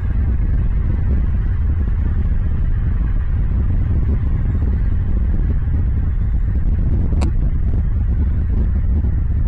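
Steady low rumble, with one sharp click about seven seconds in and a few faint high chirps.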